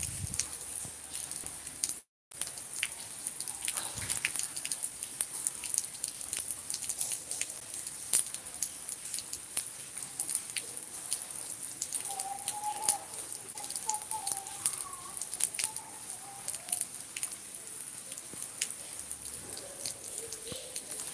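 Rain falling steadily: an even hiss with many small, irregular ticks of raindrops hitting nearby surfaces.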